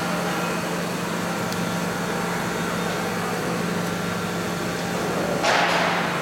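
Large OMEGA spiral dough mixer running with a steady motor hum, its bowl loaded with dough. A brief rushing noise stands out about five and a half seconds in.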